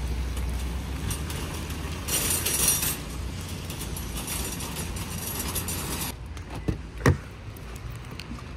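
Metal shopping cart rolling across wet asphalt, its wheels rumbling and the wire basket rattling, with a burst of hiss about two seconds in. The rolling stops about six seconds in, followed by two sharp knocks, the second the loudest.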